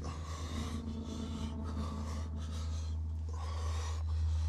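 A woman breathing heavily, about five long breaths in a row, over a low steady drone.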